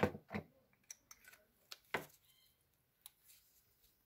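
A few sharp plastic clicks and light knocks from handling the new brake pad wear sensor and its wiring, the loudest about two seconds in, then quiet handling.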